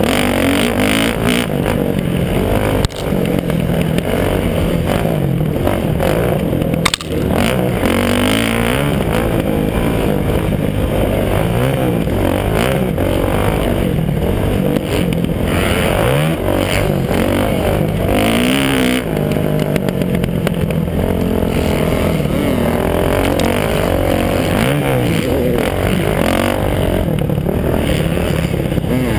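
Kawasaki KX450F dirt bike's single-cylinder four-stroke engine at race pace, its revs rising and falling with throttle and gear changes. There are two sharp knocks, about three and seven seconds in.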